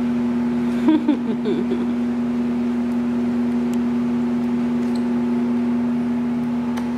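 Steady motor hum at a constant, unchanging pitch, with a short cluster of brief higher sounds just after a second in.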